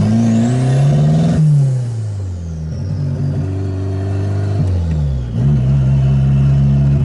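Carbureted turbocharged VW Gol engine accelerating hard through the gears, heard from inside the cabin: the revs climb with a thin high whine rising alongside, then drop sharply at a gear change about a second and a half in, and drop again at another shift near the end.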